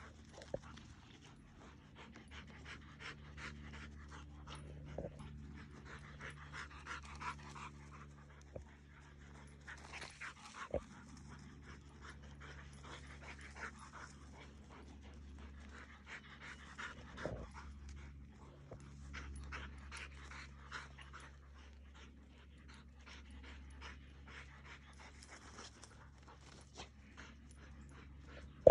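Dogs panting hard in rapid breaths from exertion as they chase a flirt-pole lure, with a few brief knocks along the way.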